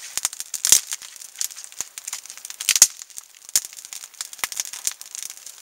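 Wood fire of pine twigs and branches crackling, with irregular sharp pops; two louder pops come just under a second in and near the middle.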